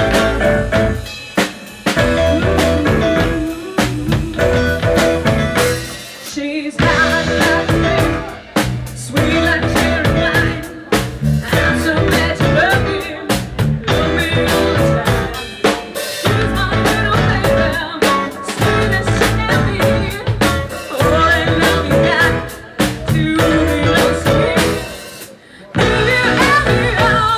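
A live band playing a blues song on drum kit, electric guitars and bass, with two brief stops where the band drops out.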